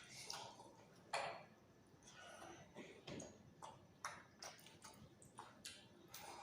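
Faint eating sounds: scattered small clicks and soft mouth noises of someone chewing a meal, with one sharper click about a second in.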